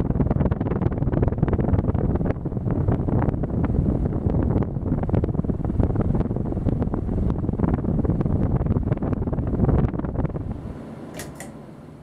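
Casablanca Lady Delta ceiling fan running at close range, its airflow buffeting the microphone in a loud, uneven rush. The rush fades after about ten seconds, and near the end there are two sharp clicks from the pull-chain switch.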